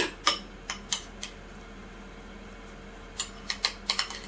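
Fork and spoon clinking against a bowl while mashing avocado: a few sharp clicks in the first second or so, a pause, then a quick run of clicks near the end. A low steady hum runs underneath.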